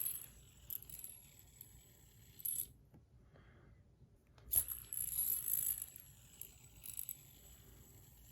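Stainless steel Sage bar spinner flicked into a spin, its bearing giving a high metallic whir that fades over a couple of seconds; it is flicked again about four and a half seconds in and whirs down once more.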